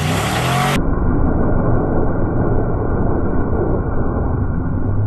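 A muscle car's engine held at high revs while the car drifts, its rear tyres spinning and smoking on the asphalt. The sound turns suddenly muffled about a second in.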